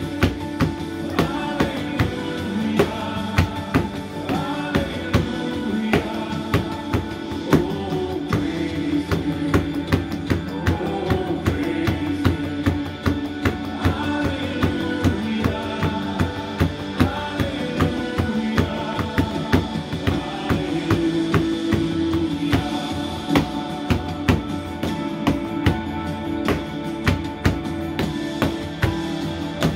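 Hands slapping a cardboard box played as a cajon, bass and snare strokes keeping a steady beat along with a recorded hymn arrangement with singing and instruments.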